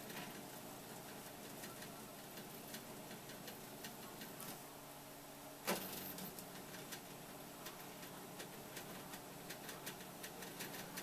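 Small motors of a scratch-built model crane slewing and moving its boom: faint irregular ticking from an old printer paper-feed stepper motor, with one sharp click about halfway through.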